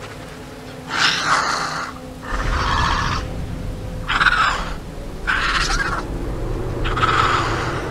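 A film dinosaur calling five times, each call a shrill, rasping cry lasting under a second to about a second. A low rumble comes in underneath about two seconds in.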